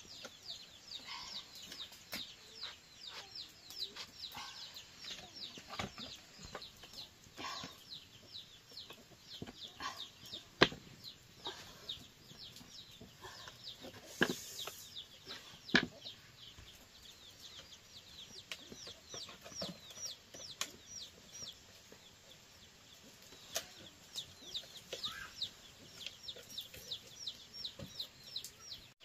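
Chickens cheeping: a steady run of short, high, falling calls, several a second. A few sharp knocks stand out in the middle, the loudest about ten seconds in.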